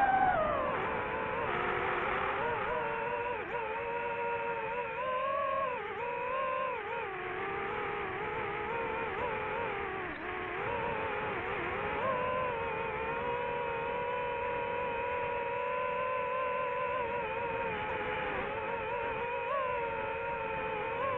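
FPV drone's electric motors and propellers whining in flight. The pitch drops sharply as the throttle comes off about a second in, wavers with throttle changes through the middle, then holds fairly steady.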